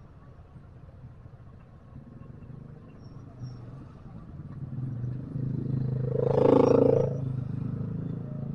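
Slow night street traffic: a steady low engine hum that swells as a vehicle passes close by, loudest for about a second around six and a half seconds in.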